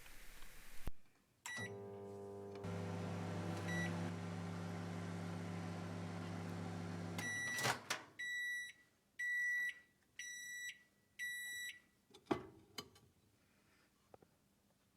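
Microwave oven heating custard: a short beep, then the oven running with a steady low hum for about five seconds. It stops with a click, four end-of-cycle beeps follow about a second apart, then a clunk near the end.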